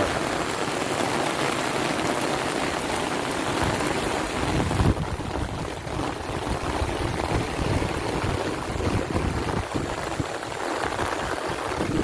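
Heavy rain falling steadily, a dense hiss. About five seconds in the high hiss drops away and the sound turns duller.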